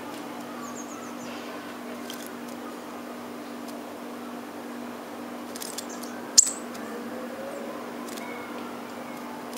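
Blue tit bathing in a shallow bird bath: a few short, sharp splashes as it flicks water over itself, the loudest about six and a half seconds in, over a steady low background hum.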